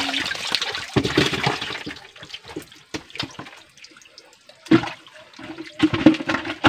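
Shallow muddy creek water splashed and sloshed by hands grabbing at fish. The splashing is loud for about the first two seconds, then dies down, with a sharp splash a little after halfway and more splashing near the end.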